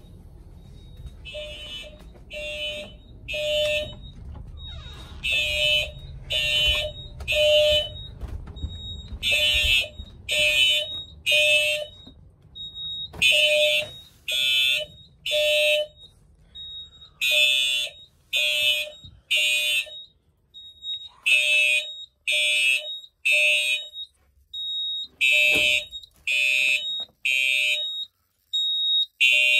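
Fire alarm notification appliances of a Simplex 4100ES system sounding an evacuation tone: short blasts in groups, a group about every four seconds.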